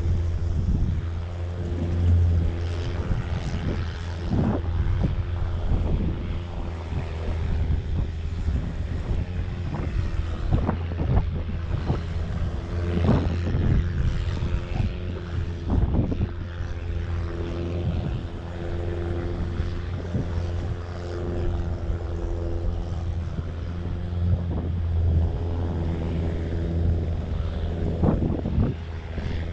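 An engine runs steadily with a low, even hum, under irregular knocks and thumps.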